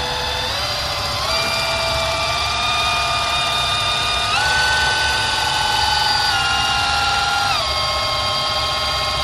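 Snap-on cordless polisher spinning a foam pad against a plastic headlight lens, polishing out rock chips. Its motor whine holds steady but steps up in pitch twice early on and again midway, then drops back down in two steps before it stops near the end.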